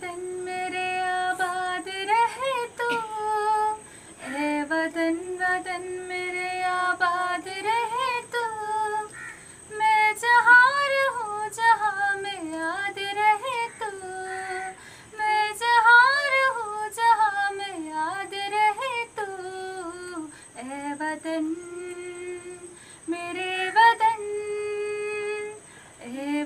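A young woman singing a patriotic song solo and unaccompanied, in phrases of long held notes and melodic turns, with short breaths between them.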